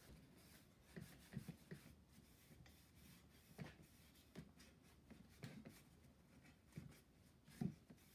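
Faint, irregular strokes of a cloth rag rubbing over bare wood as a stripped chair frame is wiped down with white spirit, with a few light knocks; the loudest near the end.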